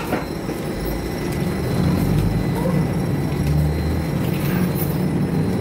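Inside a moving streetcar: the steady rumble of the car running along its rails, with a low hum that grows stronger about two seconds in.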